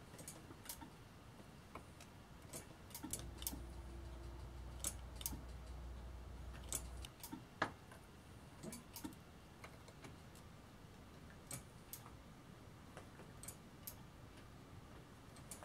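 Faint, irregular clicks and light taps of hand work while bleeding a hydraulic disc brake, with the caliper's bleed valve and the brake lever being worked as fluid and air bubbles run out through a clear hose. A low steady hum comes in about three seconds in and stops about seven seconds in.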